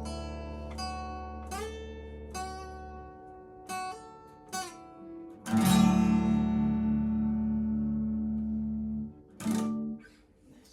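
Guitar and bass closing out a song: single guitar notes picked one by one over a fading bass note, then a loud chord with the bass at about five and a half seconds, held for several seconds, and one short final chord before the music stops.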